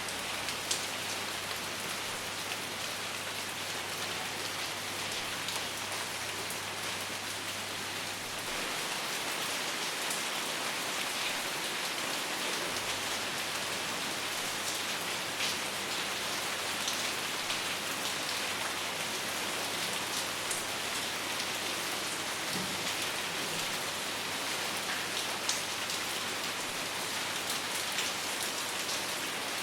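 Steady rain falling, with sharp ticks of single drops scattered through it. It grows slightly louder about eight seconds in.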